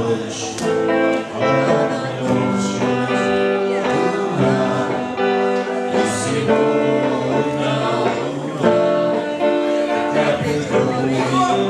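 A song sung to guitar accompaniment, the voice holding long notes over strummed chords.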